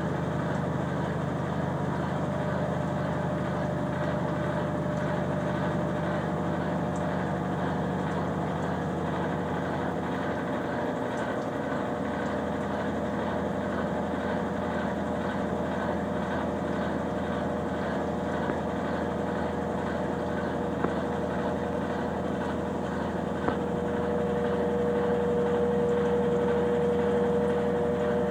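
Consul Facilite 9 kg washing machine running: a steady motor hum, with a whine that grows louder and stronger near the end.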